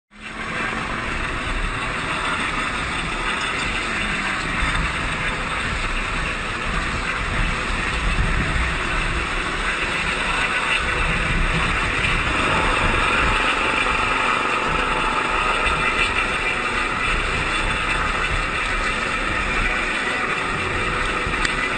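Steady engine noise with wind rumbling on the microphone.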